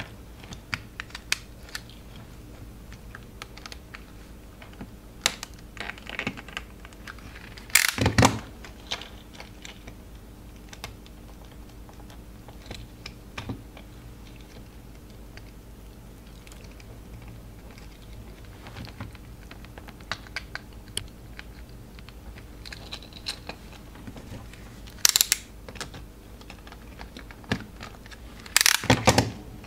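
Utility knife blade prying and scraping at the seam of a small plastic keychain flashlight case: scattered small clicks and scrapes, with louder clicks as the plastic gives about eight seconds in and twice near the end.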